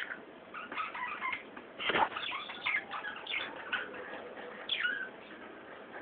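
Budgerigars chattering: a run of short, scratchy chirps and warbles, loudest about two seconds in, with a falling call near five seconds.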